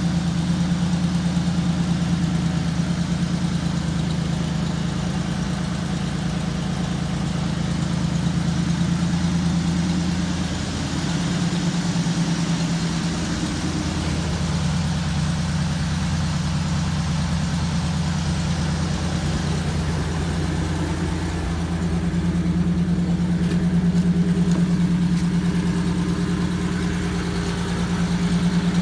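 1997 Ford F150's 4.2-litre V6 idling steadily, its exhaust not yet welded up after repair, growing a little louder and softer now and then. It runs on corrected timing after a new harmonic balancer.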